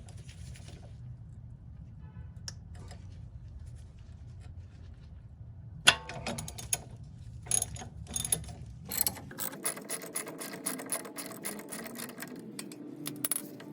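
Ratchet wrench loosening a 10 mm bolt, with scattered clicks over a low steady hum, then a sharp click about six seconds in and quick runs of ratchet clicking. Background music comes in about three-quarters of the way through.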